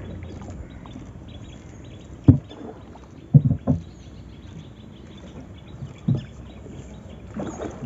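Wooden rowboat under oars: a handful of irregular knocks from the oars working against the wooden hull, over a steady low noise of moving water.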